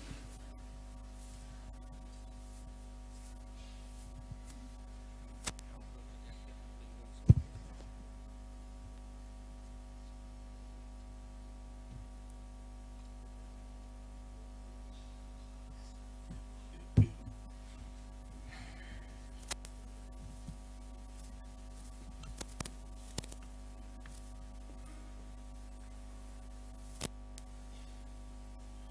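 Steady electrical mains hum from the church sound system, broken by two loud, dull thumps about seven seconds in and again about seventeen seconds in, and a few faint clicks.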